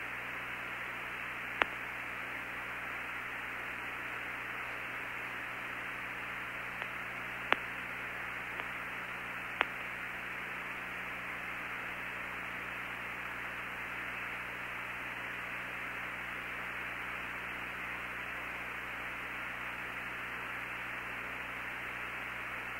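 Steady hiss of the Apollo 17 air-to-ground radio link between transmissions, with a faint low hum underneath. A few sharp clicks come in the first half.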